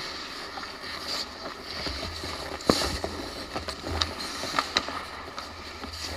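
Ice hockey skates scraping and carving on the ice, with hockey sticks and the puck clacking. A sharp crack about two and a half seconds in is the loudest sound, and several more knocks follow over the next two seconds.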